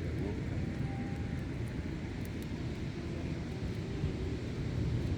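Steady low outdoor rumble of sea wind and surf at the shoreline, with faint distant voices.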